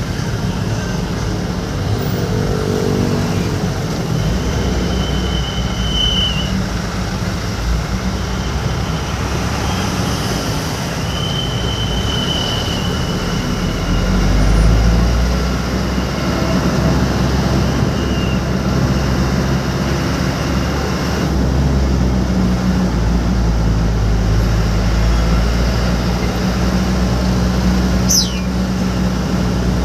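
Steady engine and road noise of a vehicle driving in traffic, a continuous low rumble with a few brief high thin tones over it.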